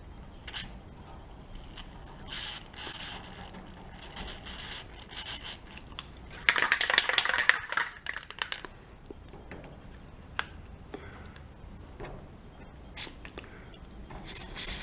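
Aerosol can of synthetic garage door spray lubricant spraying: a few short bursts, then one longer spray of about two seconds, the loudest sound, a little past the middle. Scattered small clicks and handling noises in between.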